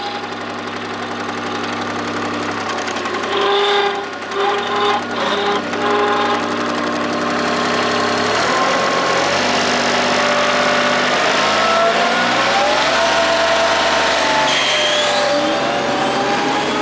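Kubota D1105 three-cylinder diesel engine of a rider vacuum running, its speed changing several times and rising in pitch in the second half.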